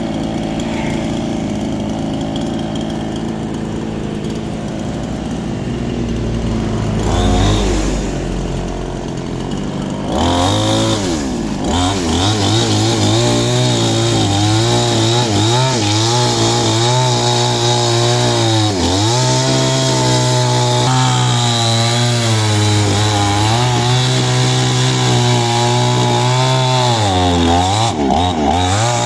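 Small two-stroke chainsaw running at a lower steady speed, revving briefly about seven seconds in, then held at high throttle from about ten seconds while cutting wood, its pitch dipping and recovering several times as the chain takes load.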